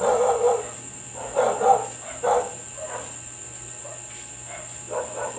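A dog barking in short bursts, about four or five times, over a steady high-pitched tone.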